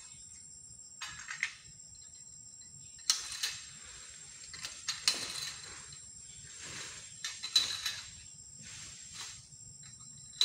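Irregular sharp crackles and rustles of dry oil palm fronds, about eight over ten seconds, the loudest about three seconds in and again past seven seconds. A steady high insect buzz runs underneath.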